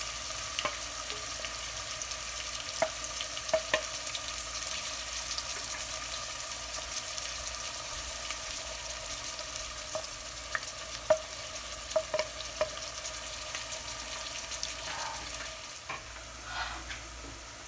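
Food sizzling steadily in hot oil in a pan, stirred with a utensil that knocks against the pan now and then.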